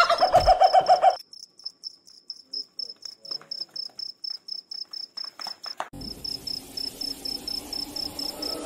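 Cricket chirping in a fast, even run of high pulses, about six a second. A loud wavering pitched sound cuts off about a second in, and a faint hiss comes in about six seconds in.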